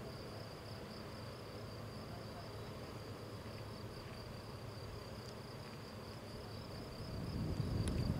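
Insects in the grass chirring: a steady, high, finely pulsing trill that runs on without a break. A low rumble swells under it near the end.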